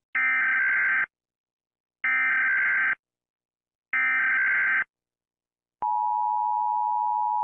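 Emergency Alert System signal: three one-second bursts of the digital SAME header data, each about two seconds apart, then the steady two-tone attention signal starting near the end.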